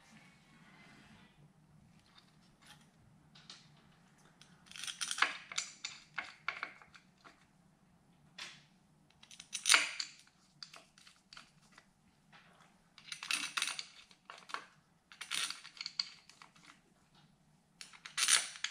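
Small steel parts clinking and rattling in short, scattered bursts: the spring screws being handled and fitted into the pressure plate of a Ducati wet clutch. A faint low hum runs underneath.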